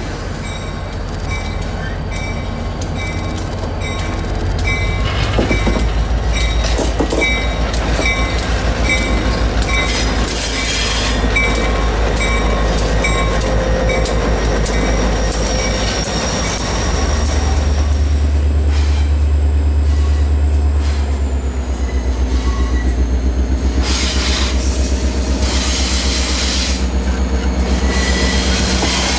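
EMD GP30 diesel locomotive with its 16-cylinder engine working, a deep steady rumble that grows louder about 17 seconds in. Rail clicks and faint wheel squeal run over it.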